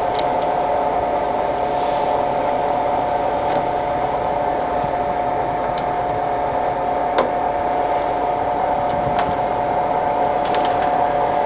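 Colchester Student 1800 centre lathe running in low range at 70 RPM, its geared headstock and turning lead screw and feed screw giving a steady gear whine. A few light sharp clicks come about seven seconds in and again near the end.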